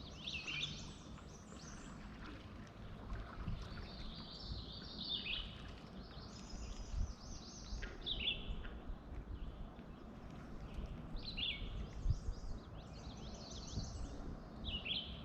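Songbirds singing, with short high chirping phrases that repeat every few seconds, several sweeping down in pitch, over a low uneven rumble.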